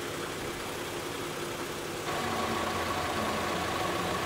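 Toyota Sienna engine idling steadily to drive the alternator for charging. About halfway through, the sound steps up slightly and a thin steady whine joins it.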